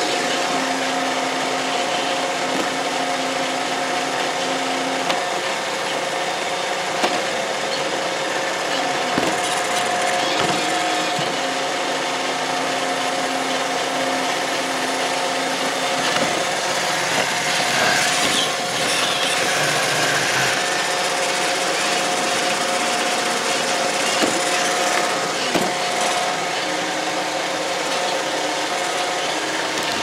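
iRobot Roomba robot vacuum running: a steady whir from its vacuum motor and brushes with a constant hum, a lower motor tone that comes and goes, and a few short knocks.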